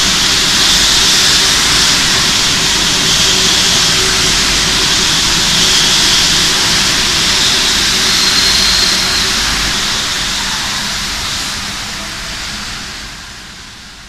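Paris Métro Line 1 rubber-tyred train pulling out and running off into the tunnel: a loud steady rush of motor and tyre noise with a faint high whine, fading away over the last few seconds as it recedes.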